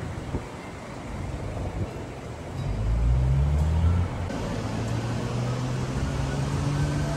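Car engine and road traffic noise. A vehicle engine runs up with rising pitch about two and a half seconds in, then settles into a steady low hum.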